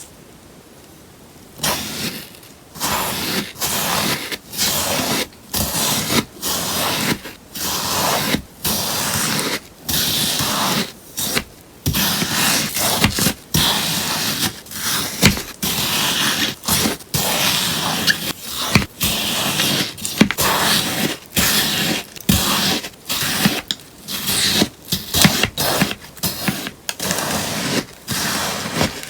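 Melamine sponge slime being cut, a long run of crisp crunching cuts, about one or two a second, starting about a second and a half in.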